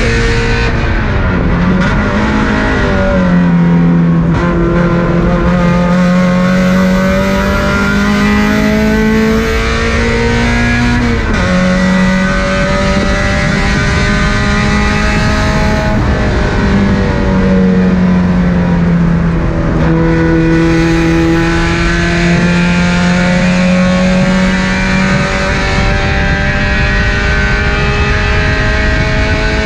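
Car engine heard from on board during hard laps of a race track: the pitch climbs steadily as it pulls through the revs, then drops back at gear changes and under braking, about a second in, around 11 seconds, and in a longer slide between about 16 and 20 seconds.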